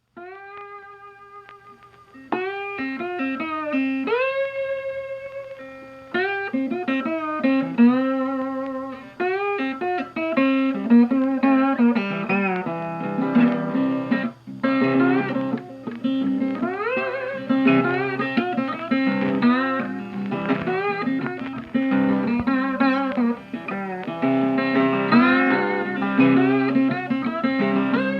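Background music: a bluesy guitar tune with bending, slide-style notes, a bass line joining about two seconds in.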